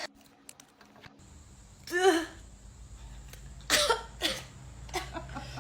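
A person's short involuntary throat sounds during a swab test. One voiced burst comes about two seconds in, and two sharper ones follow just before and after four seconds, with a faint room hum underneath.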